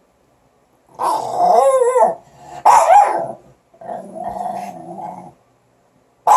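Small dogs growling and barking: wavering growly calls about a second in and again near three seconds, a lower, steadier growl after that, and a sudden loud bark near the end.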